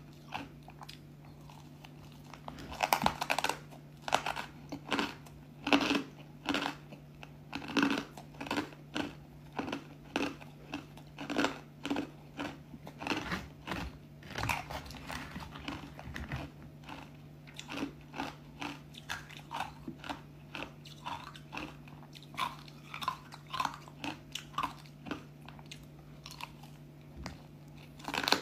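Close-up crunching and chewing of thin, crispy pieces of frozen ice dusted with powdery matcha, with sharp bites and crunches about once or twice a second. A steady low hum runs underneath.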